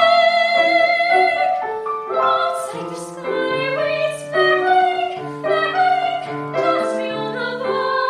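A soprano voice holds a high note with vibrato, which ends about a second and a half in. A grand piano then plays an interlude of quickly changing notes and chords.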